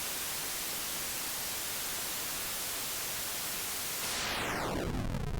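Synthesized white noise from a software synthesizer's noise oscillator, a steady even hiss. About four seconds in, a falling sweep of pitched lines cuts into the hiss as a setting is turned down.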